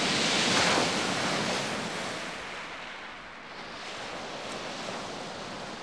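Sea waves breaking on a pebble beach: a wave surges in and breaks in the first second, then the surf falls back to a steady, quieter wash.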